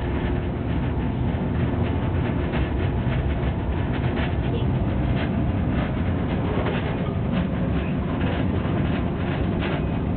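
Miniature ride-on Shinkansen train running along its track, heard from inside the front car: a steady low rumble of wheels on rail with frequent short clicks and rattles.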